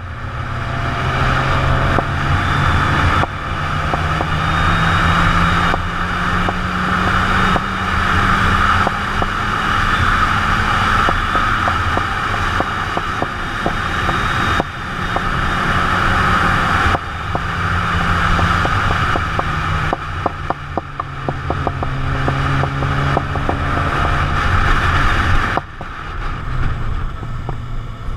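Sport motorcycle engine under way. The pitch climbs, then drops at each of several gear changes, over a steady rush of wind noise.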